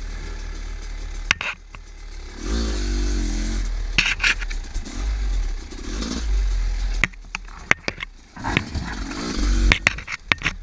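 Husqvarna WR300 two-stroke dirt bike engine running, revving up and down in two short bursts, with several sharp knocks and some clatter.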